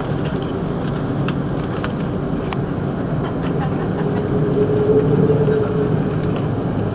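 Steady cabin rumble inside an Airbus A330-300 taxiing at idle power, with a few light clicks and rattles. About two-thirds of the way through, a faint steady hum swells for a couple of seconds.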